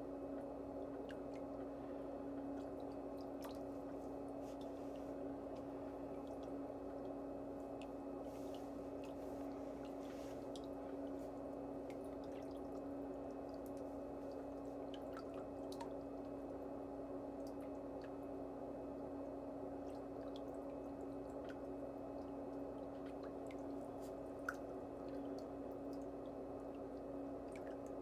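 Steady low hum with an unchanging pitch, with faint scattered ticks over it and one sharp click about twenty-four seconds in.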